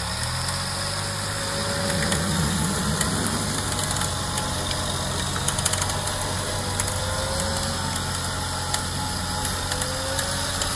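Off-road SUV engine running steadily while the vehicle is stuck in deep mud with a winch cable from its front bumper. The engine note rises a little about two seconds in, then settles.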